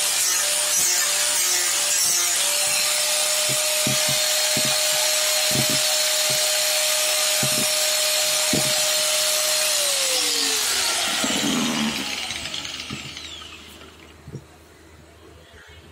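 Handheld electric power tool, such as an angle grinder, running against wood with a steady motor whine. About ten seconds in it is switched off, and the whine falls in pitch as the motor spins down and fades out.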